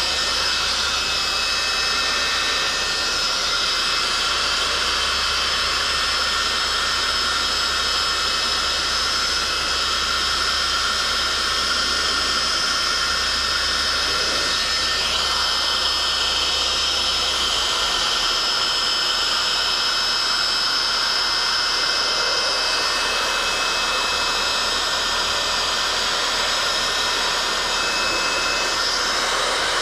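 Heat gun running steadily: a constant rush of blown air with a high whine over it.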